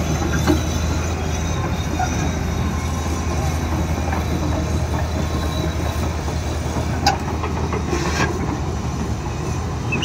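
LiuGong 922E crawler excavator travelling: a steady low diesel drone with the clatter of its steel tracks, and a few sharp knocks.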